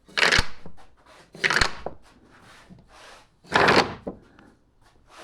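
Aerosol spray paint can giving short bursts of spray, about half a second each, four times roughly every second and a half to two seconds. A light knock comes at the end of each of the first two bursts.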